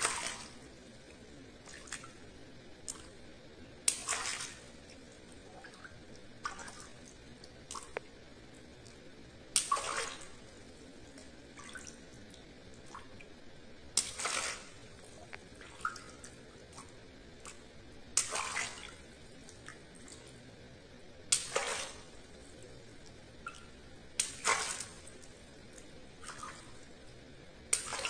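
Small water balloons popped one after another with a pin: about eight sharp pops, each followed by a brief splash of water, every three to four seconds, with fainter handling clicks and drips between.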